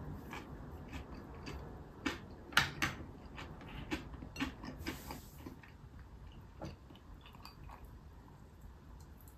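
Close mouth sounds of chewing a bite of stir-fried yamatokihokori greens and pork belly, with a run of sharp clicks between about two and five seconds in, the loudest near two and a half seconds, as chopsticks are set down on their rest; faint scattered ticks follow.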